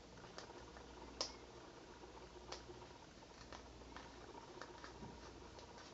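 Near silence: faint room hum with a few small scattered clicks, the sharpest about a second in.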